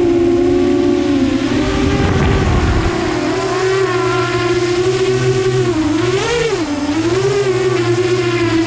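FPV drone's electric motors and propellers whining steadily, the pitch shifting with throttle and swooping up and down about six seconds in. There is wind rumble in the first few seconds.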